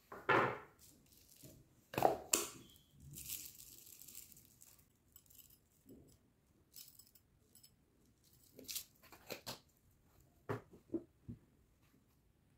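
Tableware and a small plastic jar handled on a table: scattered knocks and light clinks, with a short rattling hiss of chopped chocolate shaken out of the jar over the glass cups.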